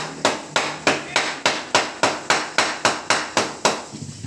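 Wooden pounder striking the stalk of a large banana bunch in a steady series of about fifteen quick knocks, three to four a second, to break the banana hands loose from the stalk.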